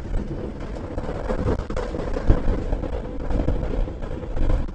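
Wind rumbling and buffeting on the microphone of a Honda ADV 160 scooter riding along a road, with a faint steady engine hum underneath and a few sharper gusts.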